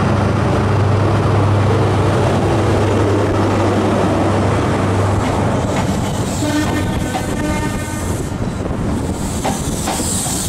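A train at a station platform, its engine droning steadily and then fading after about five seconds. Near the middle comes a short horn note, followed by irregular clacks of wheels running over rail joints.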